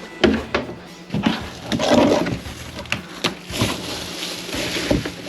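Trash being handled and thrown out by hand: a string of sharp knocks and clatters, with crinkling and crushing around two seconds in.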